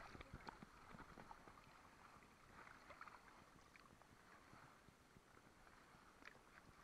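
Near silence: faint water sloshing at the surface, with a few small ticks and splashes as fish are handled at the waterline.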